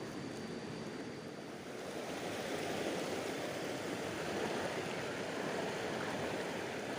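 Fast river current rushing steadily, a little louder from about two seconds in.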